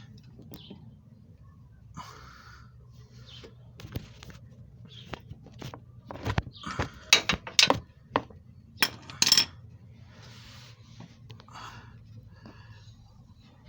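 Hand tools on a car's engine-mount bolt: scattered metallic clinks and knocks as a breaker bar and socket are fitted and worked. The loudest clanks come in a cluster around the middle.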